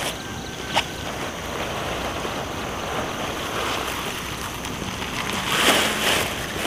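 Rustling of green onion bunches and woven plastic sacks being handled, over a steady windy hiss. There is a short click about a second in and a louder rustle near the end as bunches are gathered up.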